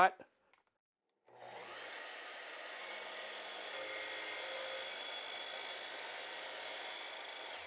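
Miter saw starting abruptly about a second in and running steadily as its blade cuts down through a board laid on a thin plywood sheet used as a zero-clearance backer.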